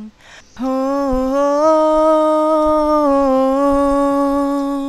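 A single unaccompanied singing voice takes a quick breath, then hums one long held note that wavers slightly in pitch: the closing hum of an a cappella song.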